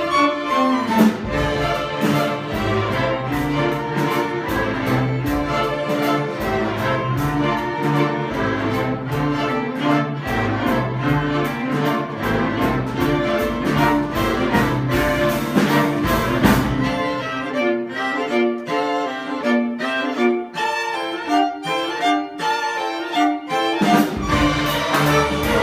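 School string orchestra playing, violins on top over cellos and basses. About two-thirds of the way through, the low parts drop out and the higher strings carry on alone, with the low strings coming back in near the end.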